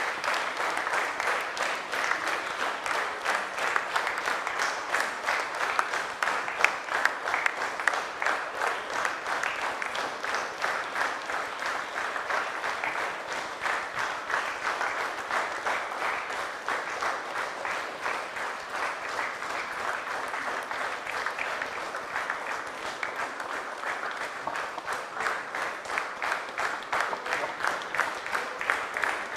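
A large group of people applauding, many hands clapping at once in a steady, unbroken stream of claps.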